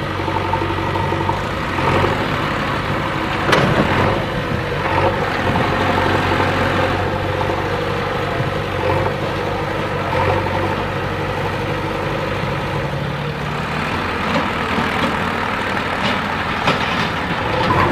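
JCB 3DX backhoe loader's diesel engine running steadily under work, with a few short knocks, one clear one about three and a half seconds in.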